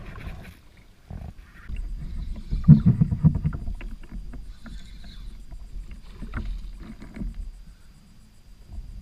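Water slapping against a plastic fishing kayak's hull, with small knocks and clicks from rod and gear handled on board; loudest about three seconds in.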